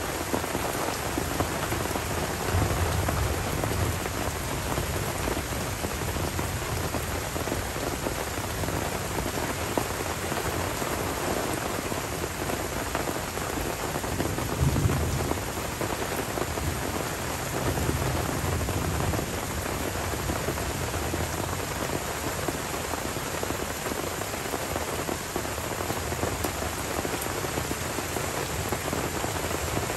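Steady tropical rain falling on forest leaves and a wet dirt track, with low rolling thunder swelling up a few times: about three seconds in, most strongly around the middle, and again a few seconds later.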